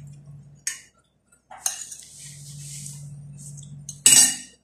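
Spoon and plate clinking and scraping during a meal: a short click, a scraping rustle in the middle, then a loud clatter about four seconds in.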